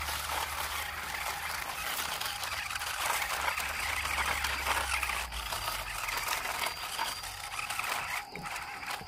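Toy RC rock crawler's small electric motor and gearbox whirring under load as it tows a toy dump truck on a chain, with its tyres crackling over dirt and dry leaves.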